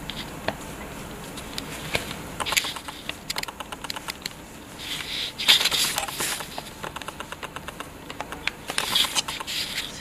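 Fingers working through wet, conditioner-coated long hair: a rapid crackle of small clicks and squelches, with a few louder rustling swells about halfway through and near the end.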